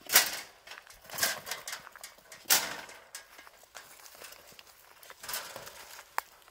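Young wild boar caught in a steel-mesh box trap, giving four sharp, breathy huffs a second or more apart, the loudest at the start and about two and a half seconds in. A brief thin ping comes near the end.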